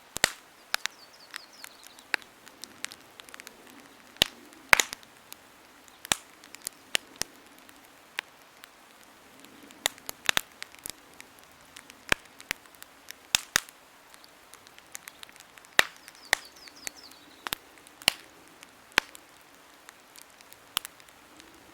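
Campfire crackling: wood burning with frequent irregular sharp pops and snaps, a few of them loud, over a faint low hiss of flame.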